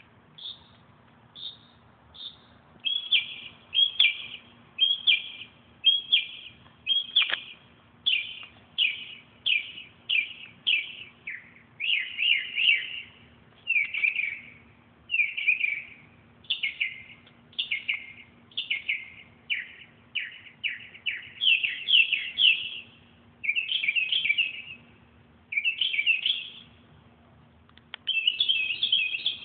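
A bird chirping over and over in short, rapid bursts, at first a few single chirps and then about one fast chattering burst a second, high-pitched. A faint steady hum runs underneath.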